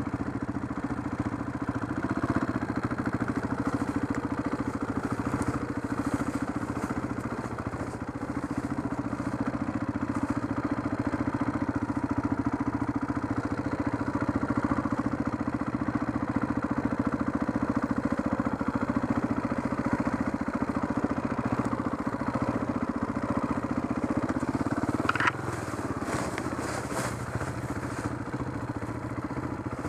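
Enduro dirt bike engine running at low, steady revs as the bike rolls down a steep forest slope. About 25 seconds in there is a short rising whine, the engine note drops and scattered clattering follows.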